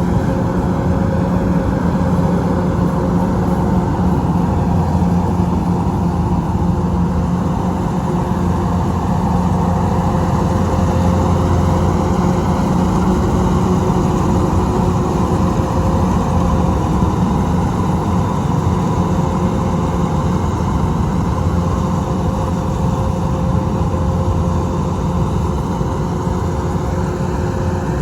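Engine of rice-harvesting machinery running steadily at a constant speed, with an even hum and no changes in pace.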